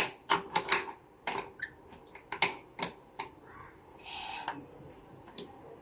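A small hand tool clicking and knocking against the wheel and frame of a child's vehicle in an irregular series of sharp taps, with a short scrape about four seconds in.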